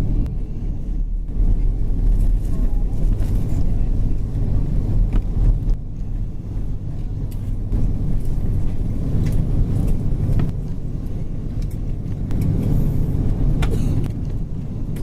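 Steady low rumble inside the cabin of an Airbus A330-200 during landing, from the engines and the airframe, with scattered small rattles and clicks from the cabin fittings.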